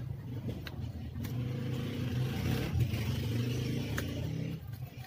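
A motor vehicle engine running, louder from about a second and a half in and dropping away near the end, with a few sharp clicks.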